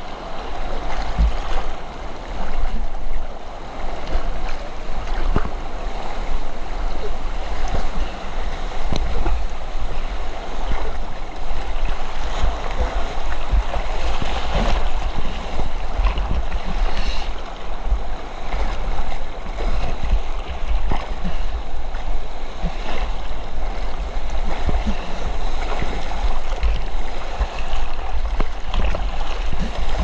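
River rapids rushing and churning right at the microphone, with water splashing against the float it rides on and a heavy low rumble throughout.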